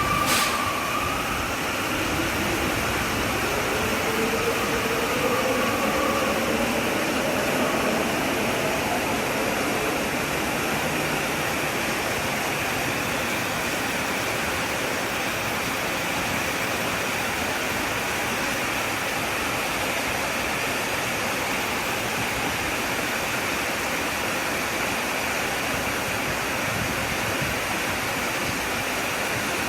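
Steady rushing of flowing water. There is a sharp click right at the start, and a few faint gliding tones in the first several seconds.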